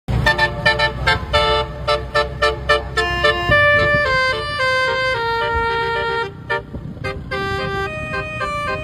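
Basuri multi-tone telolet horn playing a tune. For about the first three and a half seconds it sounds quick, short repeated honks over a low rumble, then longer held notes that step up and down.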